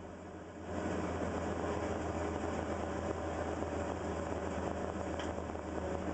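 Caterpillar 320 excavator's diesel engine and hydraulics running steadily, heard from inside the cab, getting louder less than a second in as the engine takes up hydraulic load while a bucket of fill is dumped into the dump truck.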